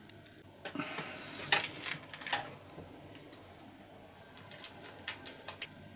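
Plastic sticker packet crinkling and rustling as it is handled. Then a few small, sharp snips and clicks as scissors cut it open.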